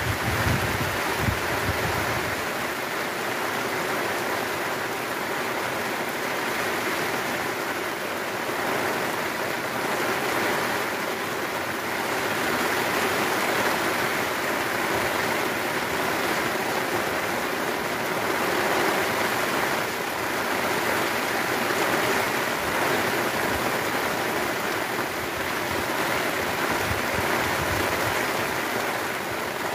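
Heavy rain pouring steadily onto open water around a boat, a dense even hiss. A brief low rumble sits under it in the first couple of seconds.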